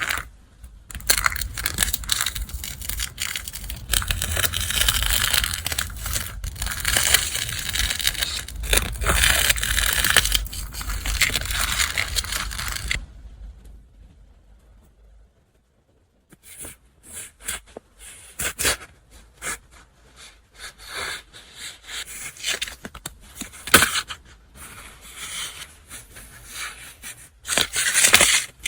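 Paper and packaging being handled: continuous rustling and crinkling for about twelve seconds, a few seconds of near silence, then intermittent crinkles and light taps.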